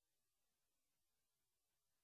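Near silence: an essentially empty soundtrack with only a faint, even noise floor.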